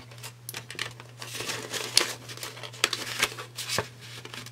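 Paper banknotes rustling and crinkling as they are handled and slid into a paper cash envelope, with irregular short rustles and a sharp snap about two seconds in.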